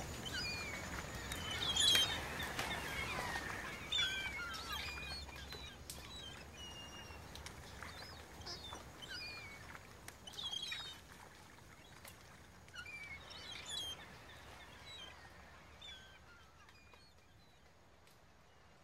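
Short, high chirping calls repeated every second or so over a faint hiss, fading out toward the end.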